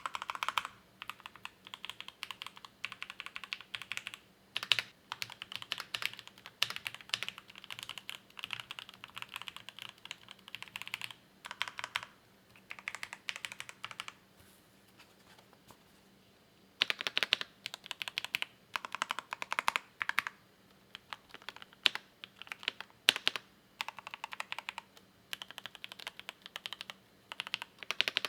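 Typing on a Drop CSTM80 mechanical keyboard with linear Gateron Milky Yellow KS3 switches: runs of rapid keystroke clacks in bursts, with short pauses and one longer pause a little past halfway.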